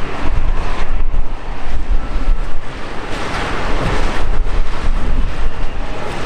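Antonov An-124's four turbofan engines running as the freighter rolls down the runway on its landing roll, mixed with heavy wind buffeting on the microphone. The sound is a loud, steady rush with a deep rumble, swelling a little about halfway through.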